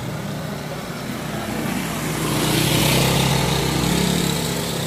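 A motor vehicle's engine running steadily, with a swell of engine and road noise that builds about two seconds in, is loudest near the middle, and eases off toward the end.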